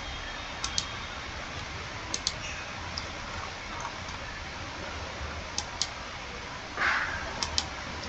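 Computer mouse clicking: short, sharp clicks, mostly in quick pairs, every second or two, over a steady low hum and hiss. A brief breathy swish about seven seconds in.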